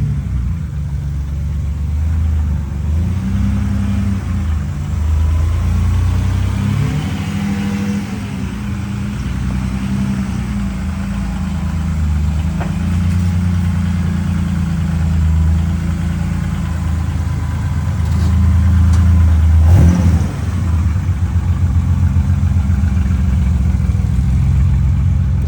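Rally car's freshly rebuilt engine running under way, revs rising and falling through the gears. About 20 seconds in the revs drop away and it settles into a steady, pulsing idle.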